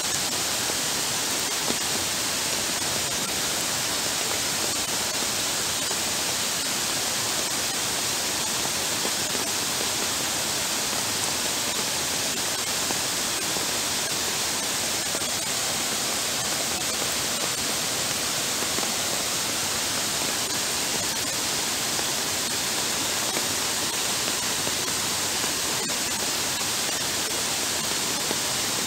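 Heavy rain pouring down in a steady hiss onto floodwater covering a paved path, with no let-up or change.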